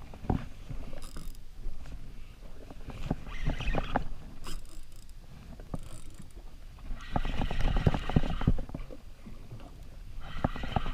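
Spinning reel being cranked in several bursts while winding in a snapper, its gears whirring and clicking, over a low wash of water and wind.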